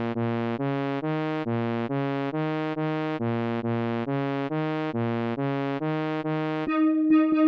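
Synthesizer music: a bright electronic sequence of short repeated notes, about three a second, over a stepping bass line. Near the end it switches to a held tone broken by sharp clicks.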